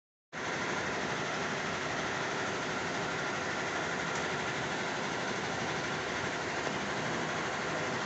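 Steady, even background noise with a faint low hum, starting abruptly about a third of a second in.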